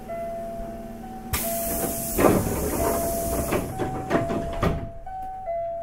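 Air-operated doors of a Hankyu 8300 series train closing, heard from inside the car: a loud hiss of released air starts about a second in, with several thuds as the doors shut, then cuts off suddenly near the end.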